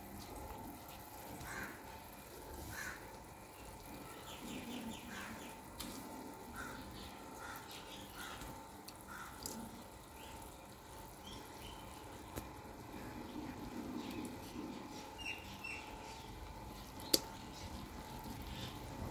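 Fish pieces handled in a steel bowl and put into a pot of simmering gravy, with soft handling noises. A single sharp knock comes about seventeen seconds in. Short bird calls recur in the background, about one a second through the first half.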